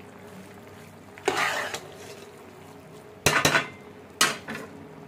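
A spoon stirring pasta in an aluminium pot, scraping against the pot several times in short strokes, with a faint steady hiss between the strokes.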